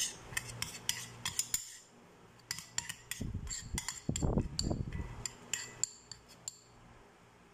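Metal spoon clinking and scraping against a glass bowl while stirring curry powder and water into a paste, in quick irregular runs of clinks. A duller knock about four seconds in; the clinks thin out near the end.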